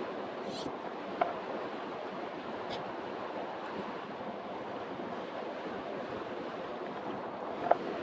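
River current rushing steadily, with a few short clicks, the sharpest near the end.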